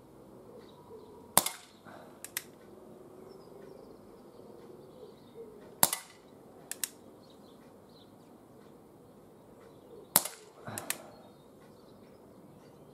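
ASG Schofield 6-inch CO2 pellet revolver fired three times, about four seconds apart, each a sharp crack. Each shot is followed within a second by a pair of lighter clicks as the single-action hammer is cocked for the next shot.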